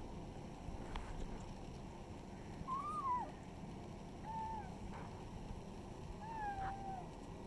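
Kitten mewing three times: short, high calls that rise and fall, the last one a little longer, over a steady low background noise.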